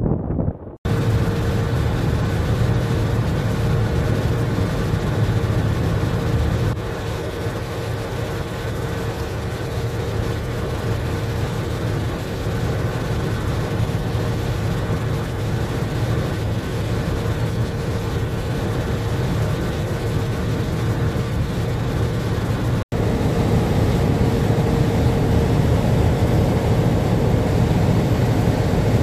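Steady low drone of a boat's marine diesel engine, with a faint steady hum on top and a rush of water and wind. The sound cuts out for a split second twice, about a second in and again near the end.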